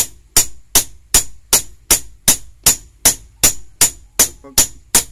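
Hammer blows on a welding rod laid on a steel block, flattening the rod: a steady run of sharp metallic strikes, about two or three a second, each with a short bright ring.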